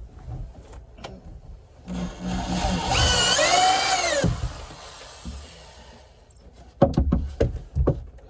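Power drill driving a screw into wood for about two seconds, its motor whine rising and then falling before it stops. A few sharp knocks follow near the end.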